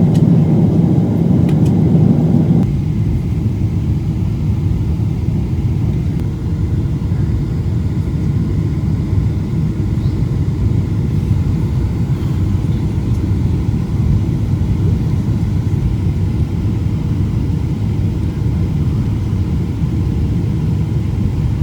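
Steady low rumble of a moving vehicle heard from inside, with no words over it; it thins slightly about two and a half seconds in.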